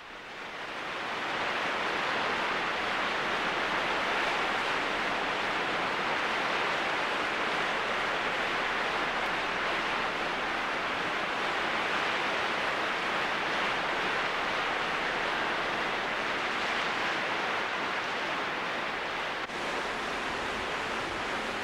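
Steady rush of river water, fading in over the first second or two.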